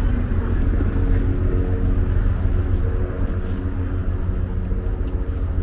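Street traffic: vehicle engines running and passing close by, with a steady low rumble and engine hum.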